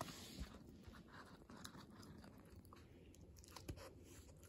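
Kooikerhondje puppy gnawing and chewing a hard chew treat: faint, irregular crunches and bites.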